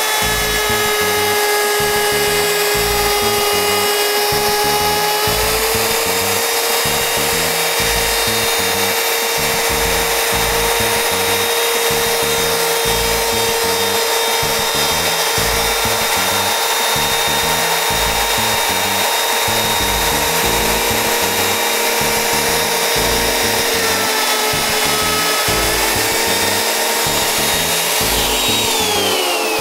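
Bosch plunge router with a bearing-guided edge-profile bit cutting along the edge of a wooden board, its motor a steady whine that shifts slightly in pitch as the cut goes on, with a vacuum running on the dust port. Near the end the router is switched off and its whine falls away.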